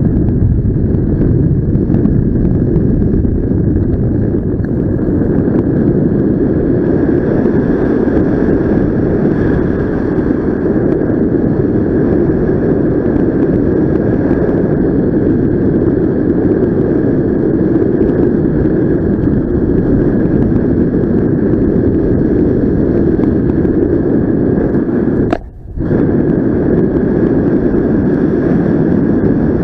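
Loud steady rush of wind over the microphone of a paraglider pilot's helmet camera in flight, with a faint steady high tone above it; the sound drops out briefly near the end.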